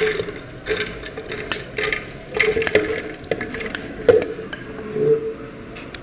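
Fresh green corn kernels tipped into a plastic blender jar of water: irregular clicks, taps and small splashes as they land.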